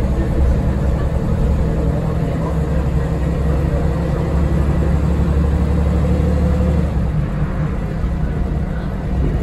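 Cabin noise of a Scania L94UB bus with its Scania DC9 five-cylinder diesel running, a steady low drone. The drone shifts in pitch about seven seconds in.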